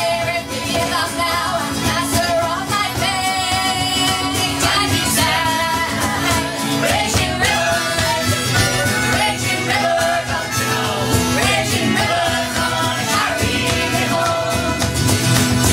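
Live band playing the song, several acoustic instruments with a melody line over a steady bass.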